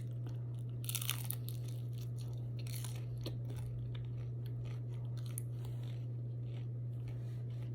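A person chewing and biting crunchy food close to the microphone, with small crunches scattered through and a louder one about a second in, over a steady low hum.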